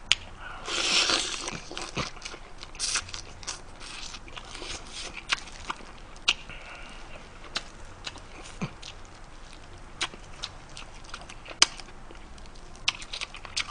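Close-miked eating of spicy braised swimming crab: a short sucking noise about a second in, then scattered sharp clicks and crunches as the crab shell and meat are bitten, chewed and sucked.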